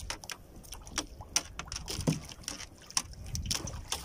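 Irregular sharp clicks and knocks as a jig's hook is worked free of a caught fish's mouth in a small boat, over a low rumble of wind and water.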